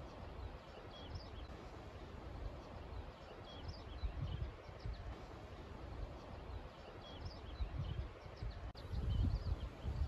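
Wind gusting across the microphone, with a low rumble that swells strongest near the end, over a steady rustle of meadow grass. Faint, short, high bird chirps come every so often.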